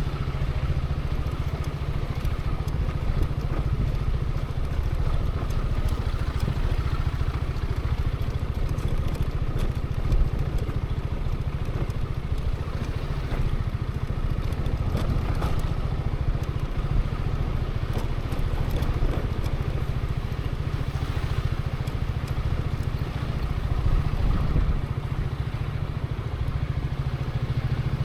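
Zontes 350E scooter's single-cylinder engine running steadily at low revs, heard from the rider's position, with a brief sharp knock about ten seconds in.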